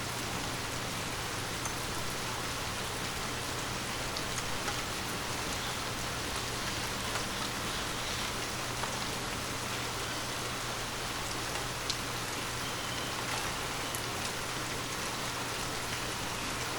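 Steady rain falling on a surface, an even hiss with scattered individual drop ticks, and a faint steady low hum underneath.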